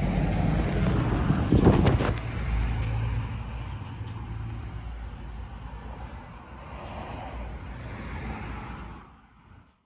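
Road traffic: a motor vehicle's engine running close by with a low rumble, loudest with a brief clatter about two seconds in, then fading away. The sound cuts off suddenly just before the end.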